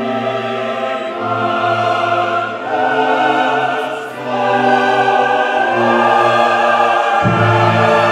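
Orchestral background music with a choir singing long held chords that change every second or two.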